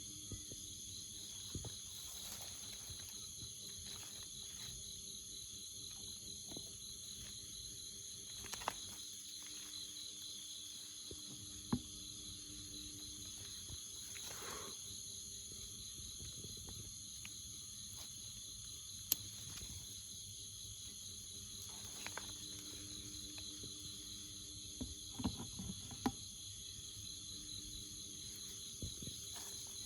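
Steady chorus of jungle insects, high-pitched and layered, one voice trilling in a fast pulse. Scattered short clicks and knocks come through it a few times, the sharpest a little past halfway.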